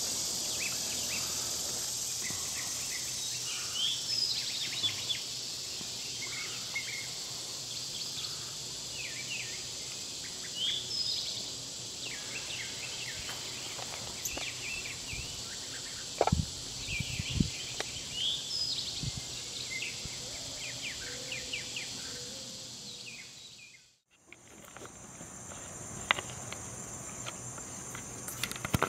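Steady high-pitched drone of insects, with scattered short bird chirps and a couple of low thumps about sixteen seconds in. Near the end the sound drops almost to silence for a moment, then the insect drone comes back with a few sharp clicks.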